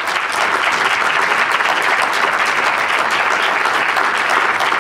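Audience applauding, a steady dense clatter of many hands clapping.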